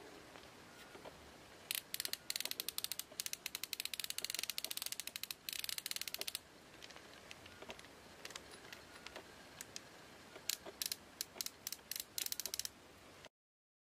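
Drag clicker of an ABU Ambassadeur 4500C baitcasting reel clicking in fast ratchet-like runs as the drag gives, with sparser single clicks in between. A long fast run starts about two seconds in, and a second run of clicks comes near the end before the sound cuts off.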